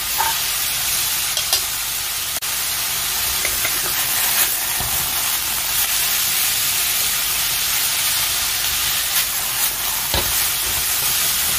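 Bean sprouts, carrot strips and chive pieces sizzling steadily in hot oil in a wok as they are stir-fried, with a few short knocks and scrapes of the wooden spatula against the pan.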